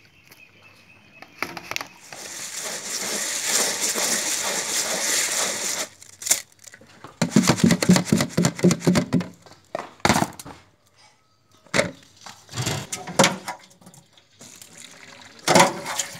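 Pomegranate arils rustling and rattling in a plastic colander as they are handled and shaken. Then a metal scoop knocks and scrapes against an aluminium pot several times in the second half.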